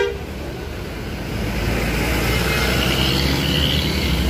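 Intercity coach's diesel engine running as the bus pulls past close by and away, over a steady low rumble of road traffic. There is a brief toot right at the start.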